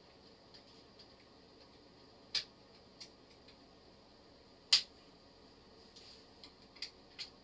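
A few separate sharp clicks and taps of small metal parts and a screwdriver being handled while a mini lathe is put together, the loudest about halfway through, over a steady faint hiss.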